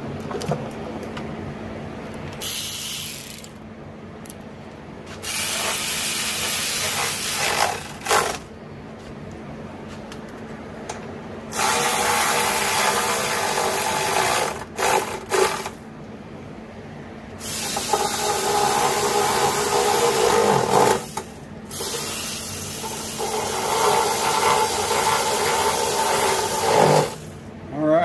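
Right-angle impact tool running in and tightening the bolts of a small engine's cover, in five runs lasting from about one to five seconds each, with short pauses between.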